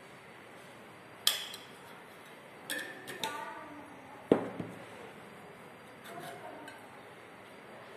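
Steel kitchen utensils and spice containers being handled: a few light clicks, a short ringing metal clink, and one sharp knock a little past halfway.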